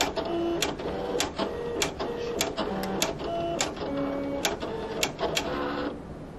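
Silhouette Cameo electronic cutting machine's motors driving the blade carriage and cutting mat as it cuts a shape from cardstock: a series of short motor whines that change pitch every fraction of a second, broken by sharp clicks. The cut finishes and the motors stop near the end.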